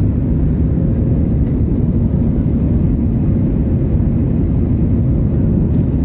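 Steady low cabin noise of a passenger airliner: the rumble of the engines and airflow heard from inside the passenger cabin.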